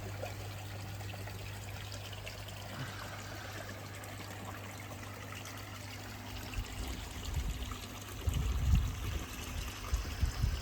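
Water trickling steadily into a garden koi pond, over a steady low hum. Irregular low rumbles come in during the second half.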